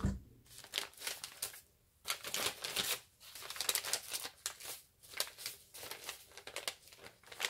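Sheets of stiff, coffee-aged paper in a folded booklet rustling and crackling as they are handled and leafed through, in a quick irregular series of crisp rustles.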